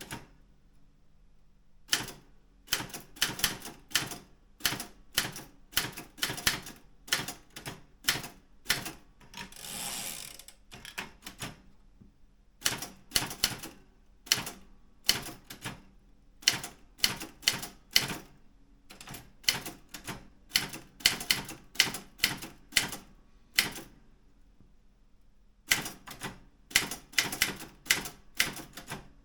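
Keys of a Daro Optima M16 manual typewriter striking in quick runs of several clicks a second, broken by short pauses. About ten seconds in there is one longer noise lasting about a second.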